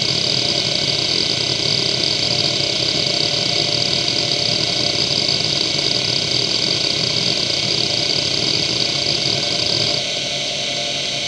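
1994 Seagate ST9145AG two-platter hard drive seeking rapidly and continuously during a random-access benchmark: a dense, busy head chatter with a high whine over the running spindle. About ten seconds in the seeking stops abruptly and only the quieter steady hum of the spinning drive remains.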